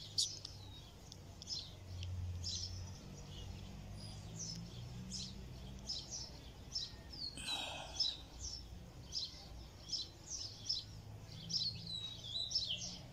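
Small birds chirping in trees, many short high calls in quick succession with a few downward-sliding notes, and one fuller, louder call about seven and a half seconds in. A low steady hum runs underneath.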